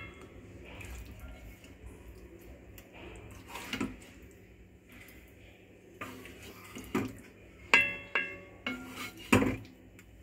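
Spoon clinking and knocking against a metal uruli as pieces of mutton in gravy are spooned onto the layered biryani rice: a few scattered strikes, the sharpest about three-quarters of the way in ringing on briefly like struck metal.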